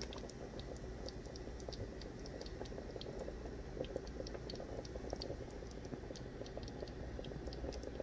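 Chicken adobo braise simmering in a pot, a dense, steady crackle of small bubbles popping in the sauce.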